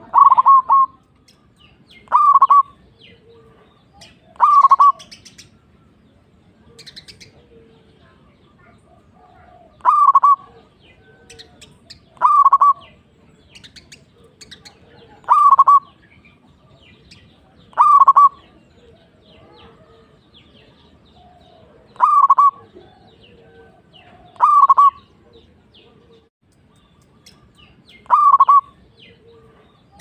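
Zebra dove (perkutut) cooing: about ten short bursts of quick, clipped cooing notes, each about half a second long, repeated every two to five seconds. Faint chirps of other small birds come between the bursts.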